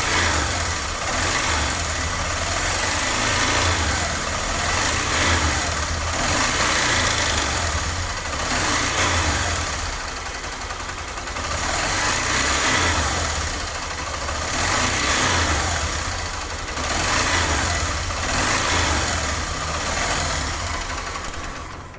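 Honda CG 125 Fan's single-cylinder four-stroke engine running, its sound swelling and easing about every two seconds, with a strange mechanical noise from the cylinder head that the mechanic traces to a broken cam chain guide.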